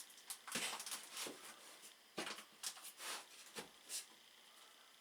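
Faint, irregular clicks and light knocks of small parts and tools being handled, about eight in the first four seconds, then quieter.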